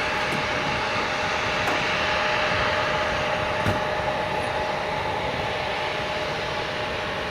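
Jet airliner engines running, a steady rushing noise with a steady whine in it, slowly growing fainter.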